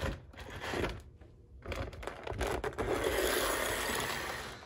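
Electric motor and wheels of a homemade 4-4-2 Atlantic model steam locomotive running on the track. It goes quiet for about half a second about a second in, then runs steadily again, now in reverse.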